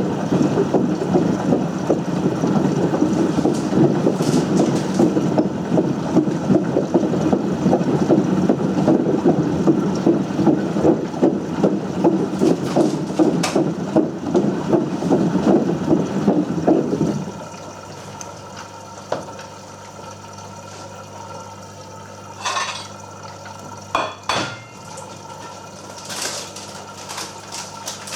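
Potato washing machine running with potatoes churning and rattling inside it, a dense fast clatter. About seventeen seconds in the clatter cuts off suddenly, leaving a low steady hum and a few sharp knocks.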